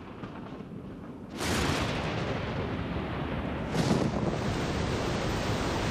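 Thunder: a quiet low rumble, then a sudden louder peal about a second and a half in that rolls on as a steady rumbling, swelling again near four seconds.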